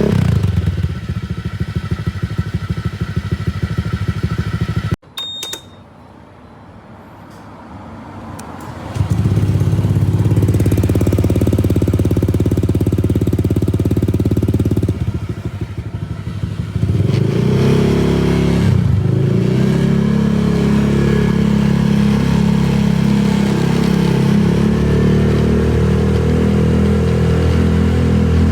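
Honda Vario scooter's single-cylinder engine running through an aftermarket exhaust. It idles with an even pulsing beat, breaks off suddenly about five seconds in, then is held at higher revs in long steady spells, with a quick rev up and down about two-thirds of the way through.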